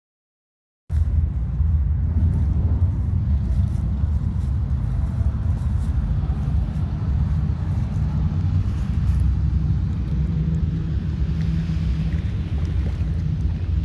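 Low, steady rumble of wind buffeting the microphone, starting abruptly about a second in.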